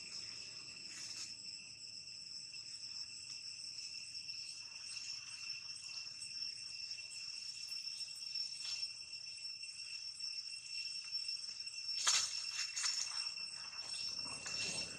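Steady high-pitched chorus of insects buzzing, a few even tones that do not change, with a brief rustle about twelve seconds in.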